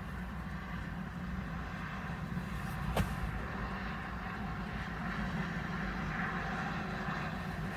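Steady low vehicle rumble heard inside a car cabin, with one sharp click about three seconds in.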